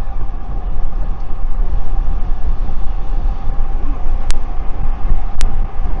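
Heavy wind rumble on a rider's Bluetooth-linked DJI Mic 2 while cycling, with a faint steady hum. Twice in the second half, sharp crackles cut through: the crackling fault of the DJI Mic 2 when it is paired over Bluetooth with an Insta360 X4.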